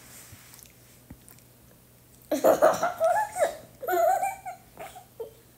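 A young child's high-pitched voice making wordless squeals and whines in two bursts with a gliding pitch, starting a little over two seconds in, followed by a brief smaller sound near the end.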